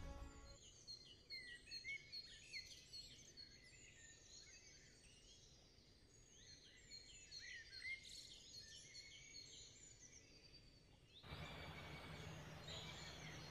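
Faint birdsong: many small birds chirping in quick, overlapping calls. About eleven seconds in it gives way to a steady outdoor hiss with a low hum.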